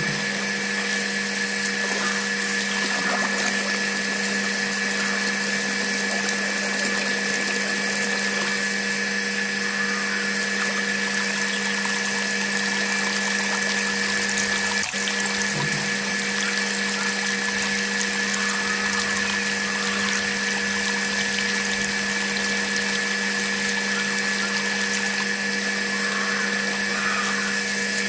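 Small DC hobby motor running steadily with a constant whine, belt-driving a miniature water pump, with water pouring and splashing into a small tank.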